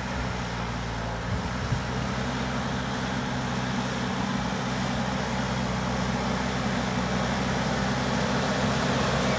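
JCB backhoe loader's diesel engine running steadily and growing gradually louder, with two short knocks just over a second in.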